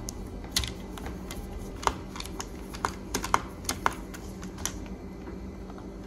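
Small, irregular metallic clicks and taps of a precision screwdriver and screws against the hard-drive bracket and aluminium case of a MacBook Pro, as a long screw is taken out.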